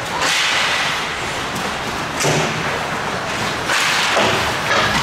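Ice hockey skate blades scraping and carving the ice in repeated hissing strokes, with some thuds.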